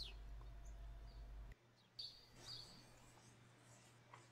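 Near silence: faint room tone with a low hum that cuts off about one and a half seconds in, and a few faint high chirps.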